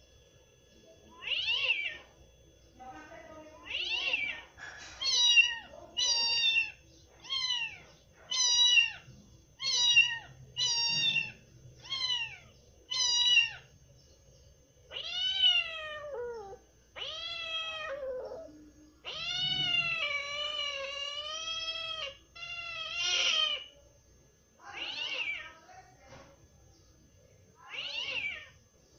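Cat meowing over and over in high-pitched meows: a run of short meows about once a second, then a few longer drawn-out meows, the longest lasting about three seconds, and short meows again near the end.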